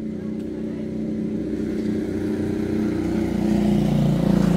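A motor vehicle engine running steadily, growing louder toward the end.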